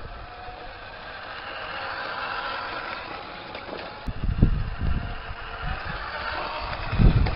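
A 1/14-scale Tamiya radio-controlled truck running, a steady mechanical drone with faint steady tones. From about four seconds in, low irregular rumbles come and go, loudest near the end.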